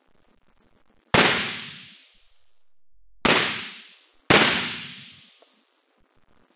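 Three sharp cracks of artificial lightning: high-voltage spark discharges fired by a Marx impulse generator. The first comes about a second in and the next two about two seconds and one second after it, each dying away over about a second.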